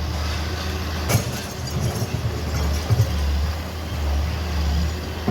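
Heavy diesel engine running steadily with a low hum. A sharp knock comes about a second in, and a couple of short thuds near three seconds.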